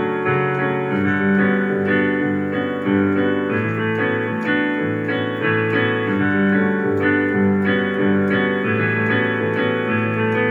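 Keyboard with a piano sound playing chords and notes in an instrumental passage, steady and continuous.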